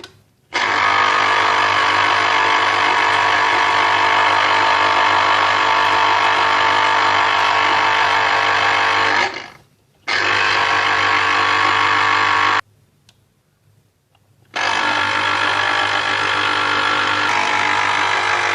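Electric juicer motor running steadily while an orange is juiced, with a low hum under a steady whine. It stops briefly twice, about nine seconds in and again for about two seconds near twelve and a half seconds, starting up again each time.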